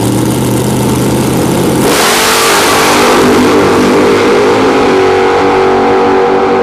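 Two drag-radial race cars, one a first-generation Camaro, held at high rpm on the starting line. About two seconds in, both launch at full throttle, the sound swelling into a loud roar as the engines pull hard down the track.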